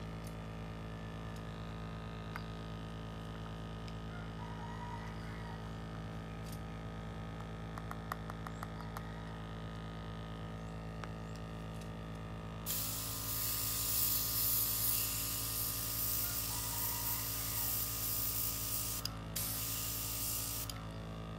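KKMoon dual-action airbrush spraying cleaning liquid, a loud hiss of air and spray that starts past the middle and runs for about eight seconds with one short break, over the steady hum of the mini compressor. A quick run of light clicks comes earlier.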